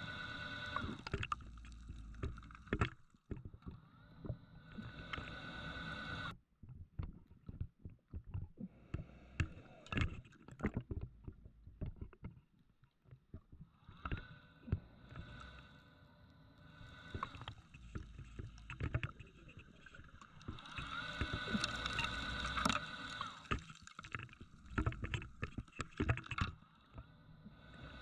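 Scuba diver breathing through a regulator underwater: inhalations with a steady whistling hum alternate with exhaled bubbles crackling and popping past the housing, several breaths in turn.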